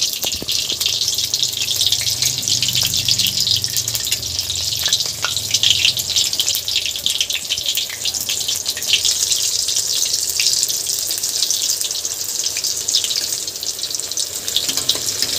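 Masala-stuffed brinjals shallow-frying in hot oil in a kadhai: a steady sizzle dotted with fine crackles and pops.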